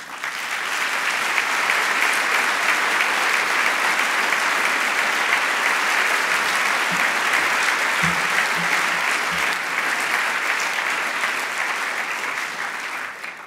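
A large seated audience applauding: the clapping swells up within the first second, holds steady, and dies away near the end.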